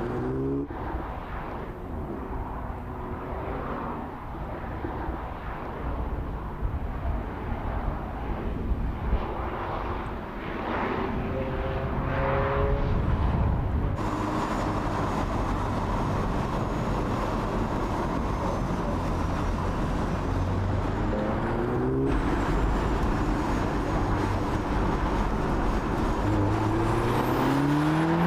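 Audi S3 Cabriolet's turbocharged four-cylinder engine pulling under acceleration, its note rising in pitch several times, over steady tyre and road noise.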